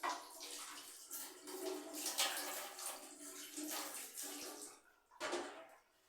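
Running water splashing unevenly, dropping off briefly near the end before one last short splash.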